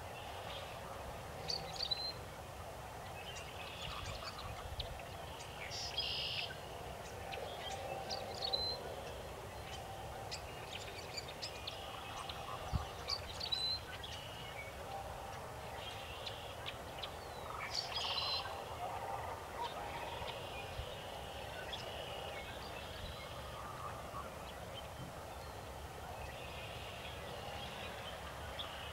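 Wild birds calling: scattered short chirps and whistled notes over a steady layer of lower calls.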